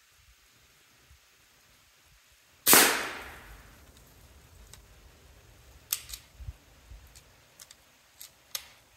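A single sharp shot from an Umarex Gauntlet 2 PCP air rifle, a little under three seconds in, its report dying away over about a second. It is followed by a series of light clicks and taps.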